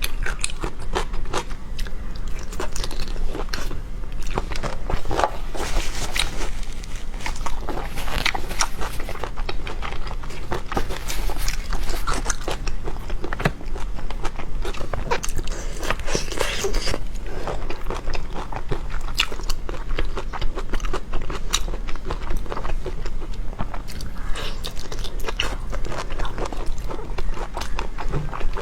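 Close-miked chewing and biting of food, a steady run of wet crackling and crunching clicks with no pauses.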